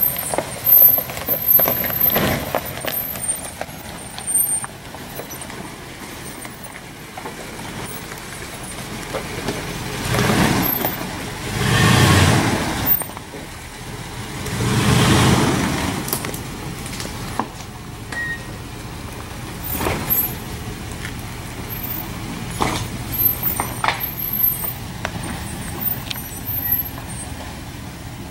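Dodge Ram pickup truck's engine running as it crawls over a rocky trail, swelling up in a few bursts of throttle in the middle, with scattered sharp knocks.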